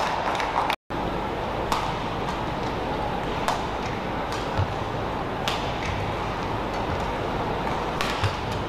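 Badminton rackets striking a shuttlecock during a rally: sharp single hits a second or more apart, with a quick double hit near the end, over a steady background of hall noise.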